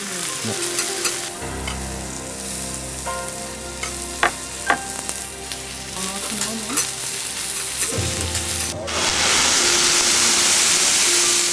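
Wagyu beef sizzling on a teppanyaki steel hot plate, with a couple of sharp metal clinks from the spatulas about four seconds in. About nine seconds in a much louder, steady hiss sets in as the griddle is flambéed.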